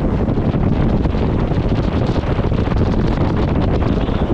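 Strong, steady wind buffeting the microphone of an onboard camera on an Extreme 40 racing catamaran under way, a loud rumbling rush with no break.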